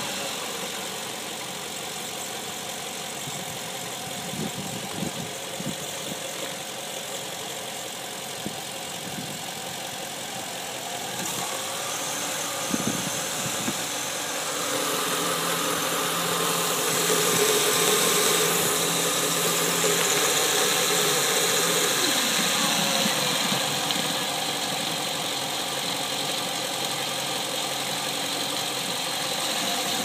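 Land Rover Discovery II engine running with the power steering pump's growl and whine, while the serpentine belt tensioner is worked with a breaker bar to test whether the noise comes from the pump. About halfway through the sound gets louder, with added steady tones, then eases again in the last third.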